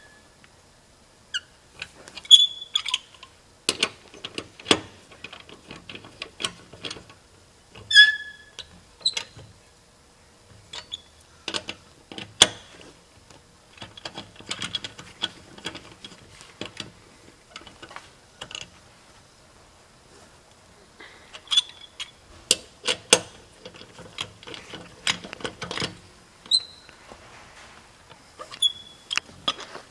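Metal clicks, knocks and clanks from a wrench at work on a car wheel's lug nuts as they are tightened, in scattered bursts with pauses between and a few brief high squeaks.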